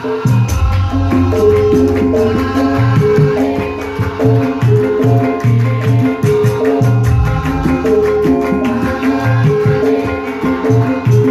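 Javanese gamelan ensemble playing, with the bonang's small bronze gong-chimes struck in quick runs of short ringing notes over repeated low strokes.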